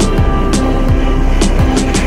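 Background music with a steady beat: deep kick-drum hits that drop in pitch, sharp snare-like strikes and held tones.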